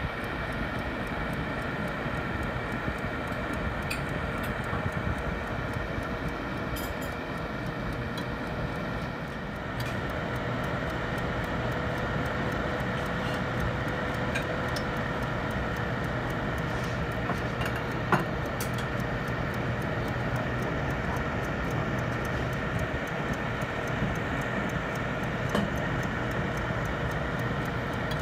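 Countertop oven or air fryer running: a steady fan hum with a constant whine, and scattered faint ticks and pops from sausages cooking on foil, with one sharper click about 18 seconds in.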